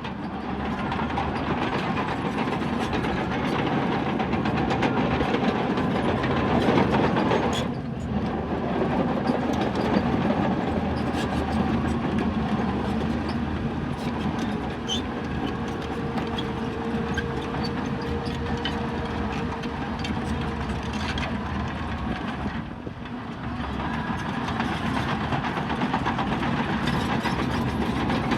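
Bulldozer's diesel engine running with the clanking clatter of its steel crawler tracks; the noise drops briefly twice, about 8 and 23 seconds in.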